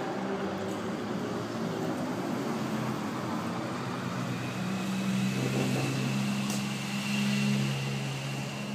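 A vehicle engine fades away at the start, then a steady low engine hum sets in about halfway through, with a faint high whine above it.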